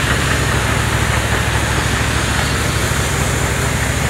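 Portable air-powered grain cleaner running steadily, its fan and two pencil augers driven by a small single-phase generator. A constant engine hum with a rush of air over it.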